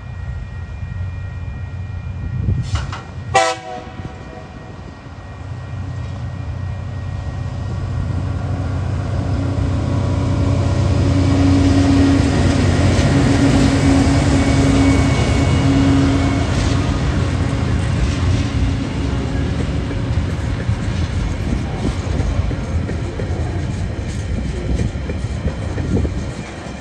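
TasRail diesel-electric locomotives TR05 and TR06 hauling a freight train. There is a brief horn sound about three seconds in. The engines then grow louder with a steady hum as the locomotives pass, and the wagons follow, clattering over the rail joints.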